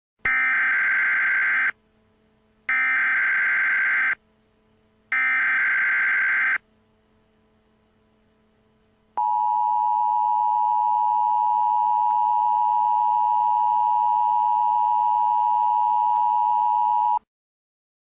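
Emergency Alert System SAME header: three identical bursts of digital data tones about 1.5 s each, followed after a short gap by the EAS two-tone attention signal held steady for about eight seconds. It marks the start of a new emergency alert.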